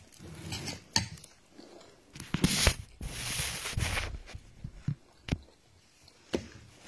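A metal spoon clicking a few times against a ceramic bowl of garri, with a short soft hiss about three seconds in.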